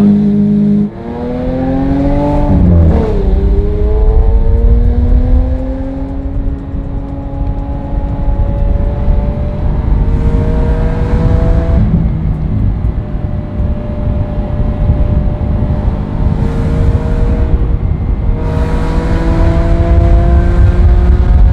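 Lamborghini Aventador's V12 engine accelerating through the gears, heard from inside the cabin. There is a sharp rev and a drop about a second in, a climb that falls away at a shift near three seconds, then several long, slower rises in pitch.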